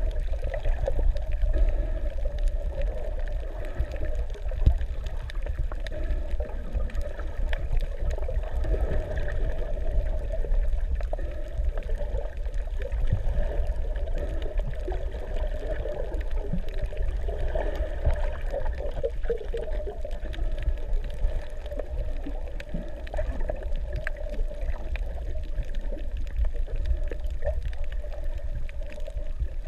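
Underwater sound heard through a submerged action camera's housing: a steady, muffled low rumble of moving water with gurgling and a fine crackle throughout.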